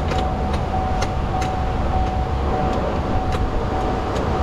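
Light, irregular clicks and taps of hands handling parts inside an opened car door, over a steady background hum with a constant thin tone.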